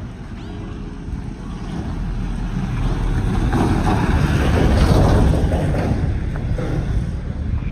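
A vehicle passing on the street: a rushing noise that swells over a few seconds, is loudest about five seconds in, then fades.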